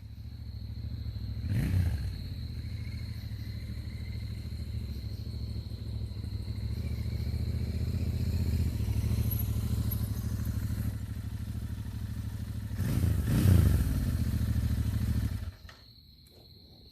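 Royal Enfield Continental GT 650's 648 cc parallel-twin engine idling through its stock silencers, blipped briefly about 1.5 s in and again about 13 s in, then switched off about 15 s in.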